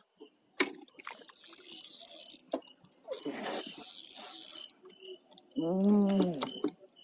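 Metal clinking and rattling of fishing tackle being handled, opening with a sharp click. Near the end comes a short hummed vocal sound that rises and falls in pitch.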